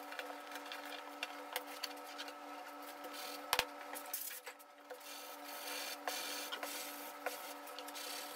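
Hand sanding block rubbing over the hot-coated epoxy rail of a surfboard, a faint scraping that thickens in the second half, over a steady hum. A single sharp knock comes about three and a half seconds in.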